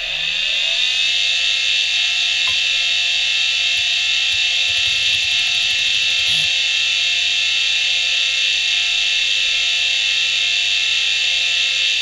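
Western Digital Caviar 2340 hard drive (3322 RPM) finishing its spin-up about a second in, then running at speed with a steady high-pitched whine and a few faint ticks.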